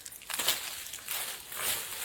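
Rustling and crunching of leafy stems and soil as a clump of lesser galangal (sitharathai) is handled, in a few short, irregular scrapes.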